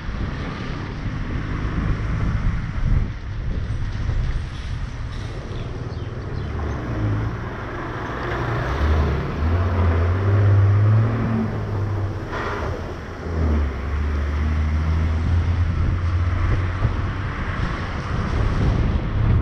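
Car driving on a rain-wet road: a steady hiss of tyres on wet asphalt under a low engine drone that swells around the middle and again in the second half. A short, sharper sound cuts through about twelve seconds in.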